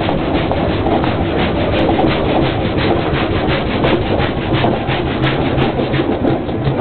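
Steam roller's steam engine running, with a steady fast rhythm of rasping beats about five a second over a low rumble.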